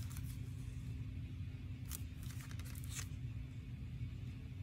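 Faint rustling from a plastic DVD case being handled, twice, over a steady low hum.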